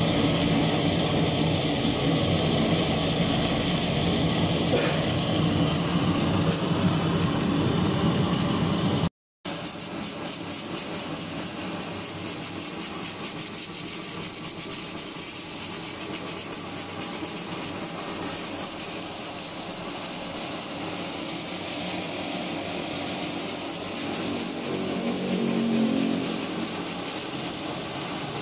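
Freshly lit gas stove burner running with a steady rushing sound under the pot. After a break about nine seconds in, a quieter, steady, higher-pitched hiss from the pressure cooker heating on the flame.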